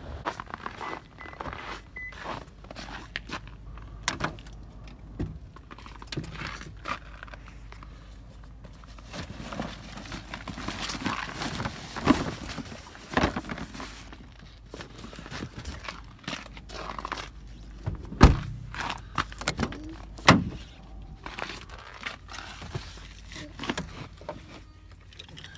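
Scattered clicks, knocks and rustles of someone handling things inside a vehicle cab, over a steady low hum, with two louder thunks past the middle.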